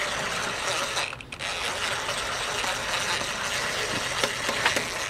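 Cordless impact driver hammering, running a 10 mm nut onto a small engine's air box, with a brief pause about a second in.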